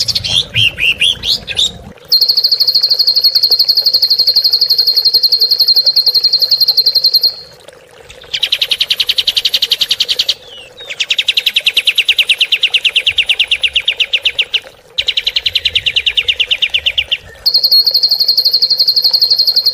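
A recorded songbird training song of the harsh rapid-fire 'tembakan kasar' type. A few varied chirps open it, then come a series of very fast rattling trills, each two to five seconds long, with short breaks between them, some pitched higher than others.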